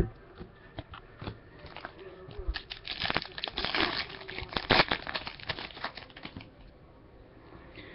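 Foil wrapper of a trading-card pack crinkling as it is torn open, with rustling and crackling that is loudest around the middle and dies down about six seconds in.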